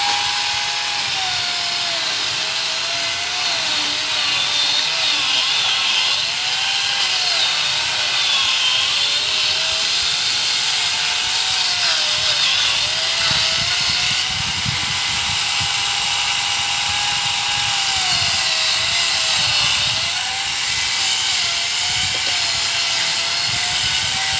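Grinder saw (an angle grinder fitted with a small chainsaw bar) running steadily while cutting into a dead coconut tree trunk; its motor whine sags and recovers in pitch again and again as the chain bites into the wood.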